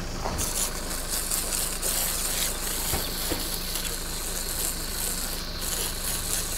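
Water jet from a hose spray wand hitting the spare tyre and rear of a 4WD, a steady hissing spray with water splashing off the car, rinsing the cleaner off the tyre.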